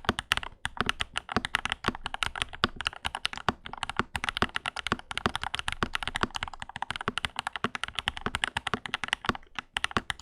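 Fast, continuous typing on a Lychee G80 mechanical keyboard, dense key clacks with a short pause near the end. The board is modded with a PE foam and three layers of Tempest tape, which make the sound fuller, cleaner and more thocky.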